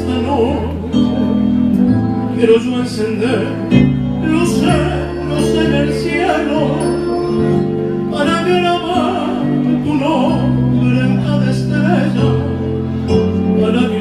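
Live band music: electronic keyboard and bass holding long notes that change every second or two, under a wavering vibrato melody sung by a lead voice.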